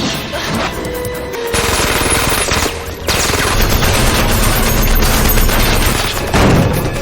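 Action-film shootout soundtrack: rapid automatic gunfire, dense and continuous from about a second and a half in and louder from about three seconds in, over background music.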